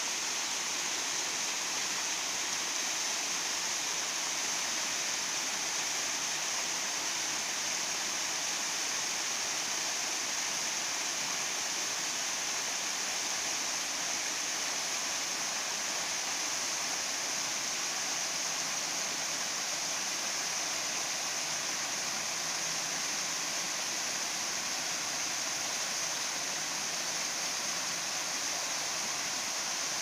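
Rainy-season waterfall pouring over karst limestone rock, a steady rush of falling and splashing water.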